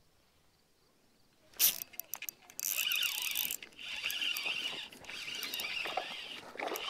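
A sharp knock about a second and a half in, then a spinning reel being cranked in several spells of whirring, reeling in a small largemouth bass hooked near the shore.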